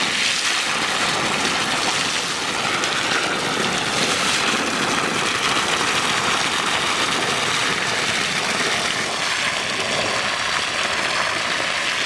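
Water running steadily from a garden hose into the deep furrow of a potato bed, flood-irrigating it.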